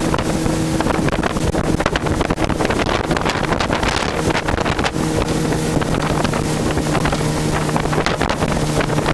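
Motorboat engine running at a steady speed, a constant hum under heavy wind buffeting on the microphone.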